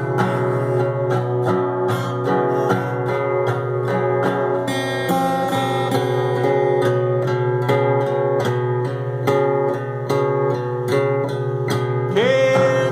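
Acoustic guitar strumming chords in an even rhythm through an instrumental passage of a rock song. A voice comes in singing near the end.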